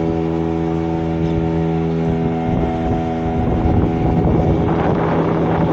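Motorboat engine running at a steady pitch, with rushing wind and water noise growing louder about four and a half seconds in.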